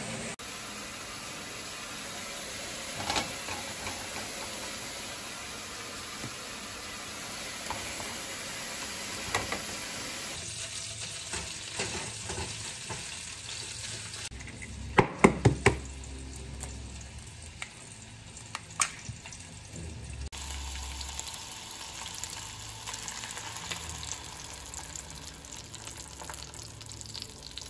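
Kitchen food-prep sounds: cutting at the counter, eggs being beaten in a bowl with a cluster of sharp knocks about halfway through, then beaten eggs poured into a hot frying pan with sliced hot dogs, sizzling.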